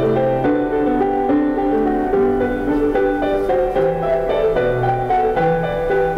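Background piano music: a gentle run of notes.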